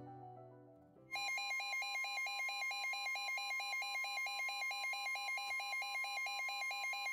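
Emergency weather alert attention signal: a loud steady tone with a second tone warbling rapidly, about four times a second. It starts about a second in, after soft ambient piano music fades, and comes just before a read-out of a severe thunderstorm warning.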